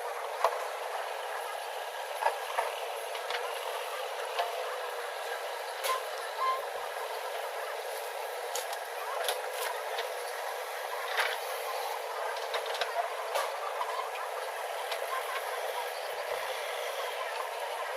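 Heavy machinery engine running steadily, with scattered sharp clanks and knocks.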